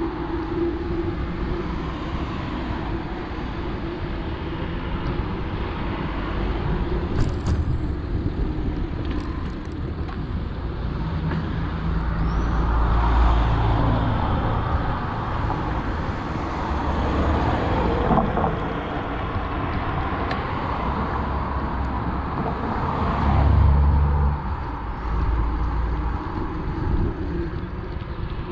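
Wind rumbling on the microphone during a bicycle ride, over a steady rush of road noise, with heavier gusts about halfway through and again near the end.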